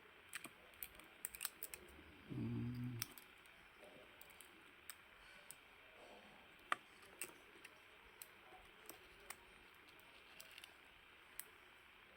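Scattered light clicks and taps of small tools and phone parts being handled as a smartphone battery is fitted in, with a brief low buzz a little over two seconds in.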